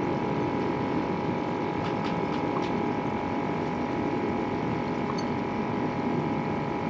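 Steady mechanical hum with a constant faint whine over a watery hiss, with a few faint light clicks.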